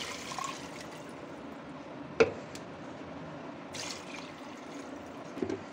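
Water poured from a jug into a pressure cooker full of mutton trotters, splashing steadily as the pot fills. A single sharp clink about two seconds in.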